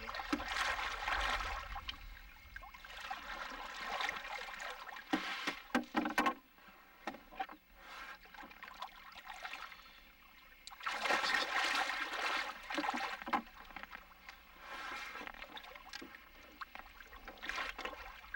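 Water splashing and sloshing in irregular bursts as a hooked catfish thrashes at the surface on a hanging line. There are a few sharp knocks about five to six seconds in.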